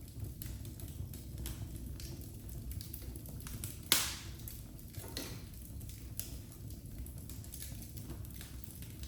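Wood fire crackling in a fireplace: scattered small snaps over a low steady rumble of flames, with one loud pop about four seconds in and a smaller one a second later.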